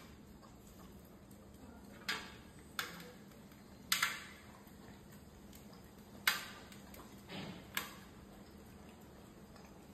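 A dog licking and eating off a stainless-steel plate. The metal plate gives about seven sharp, ringing clinks, the loudest about four and six seconds in, over faint licking.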